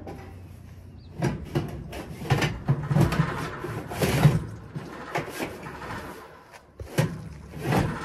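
Irregular knocks, clatter and scraping of sheet-metal blower parts being handled while a replacement ECM blower motor is fitted into the blower housing, with two sharp knocks near the end.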